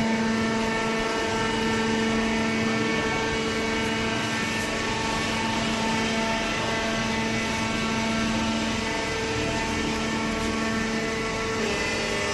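Hydraulic cardboard baler running with a steady, even hum from its motor and pump.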